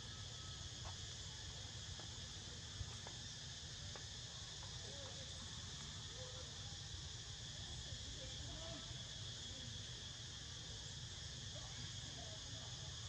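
Steady high chorus of insects trilling without pause over a low steady rumble, with a single sharp click about three seconds in and a few faint short chirps later on.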